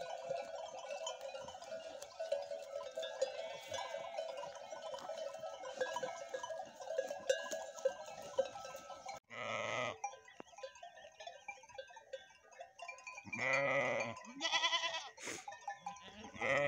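Many small livestock neck bells of a grazing flock jingling and clanking together. In the second half the bells fade and animals of the flock bleat four times.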